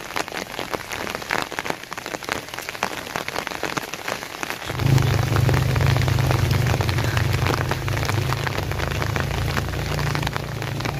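Steady rain pattering, a dense crackle of drops. About five seconds in, a low steady drone comes in under it.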